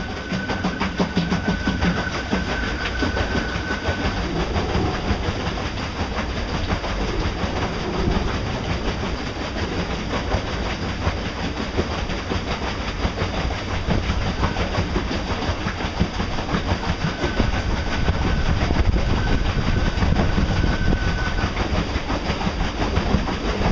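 Boat underway: steady rushing and slapping of water along the hull, with wind on the microphone. A faint, steady, high whine comes and goes.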